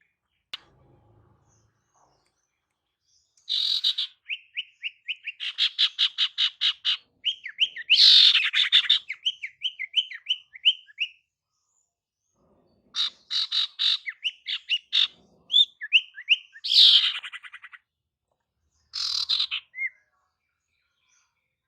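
Female common iora (sirtu) calling in three bouts of fast chirp runs and harsh rattling chatters, with short pauses between them. These are the calls used to lure male ioras.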